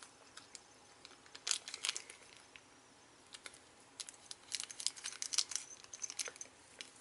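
Quiet crinkling of a small plastic blind bag handled in the fingers, with a denser run of crackles and scissor snips about four seconds in as the bag is cut open.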